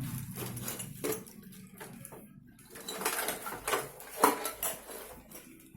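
Handling noises from unboxing a manual cup sealer machine: irregular rustling, light clicks and clatter of packaging and parts, with the sharpest knock about four seconds in.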